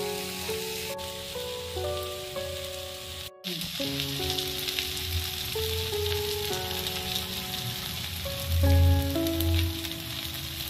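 Food sizzling as it fries in hot oil in a pan, a steady hiss, under background music of slow held notes. The sound cuts out for an instant about a third of the way in.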